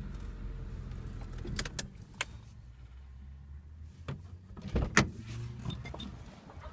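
Handling noise inside a parked car: a low hum that fades out about four seconds in, and a few sharp clicks and knocks, the loudest about five seconds in.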